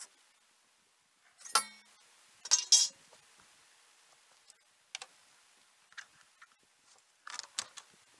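Scattered sharp clicks and knocks, some in quick pairs, one with a short metallic ring: handling noise on a bass boat's deck as a caught bass and gear are moved about.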